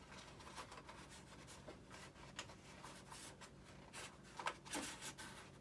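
Faint scratching and rubbing of fingers working a servo lead through the foam airframe of an RC jet, with a few sharper scrapes near the end.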